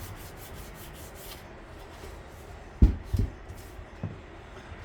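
Rhythmic hand rubbing strokes on an outboard motor hood, about four a second, stopping about a second and a half in. Then two low thumps close together near the middle, and a lighter one later.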